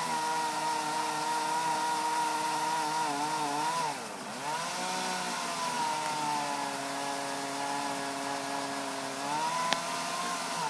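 Chainsaw engine running hard while cutting into a tree's main leader, its pitch dipping sharply about four seconds in as it bogs down under load, running lower for several seconds, then rising again near the end. A single sharp click sounds near the end.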